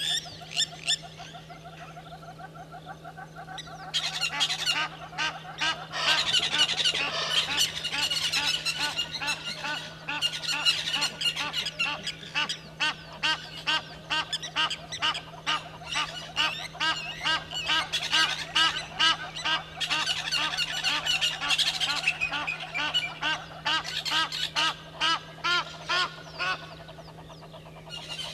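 A loud chorus of many birds calling at once in rapid, overlapping repeated calls. It swells up about four seconds in and dies away near the end, over a steady low hum.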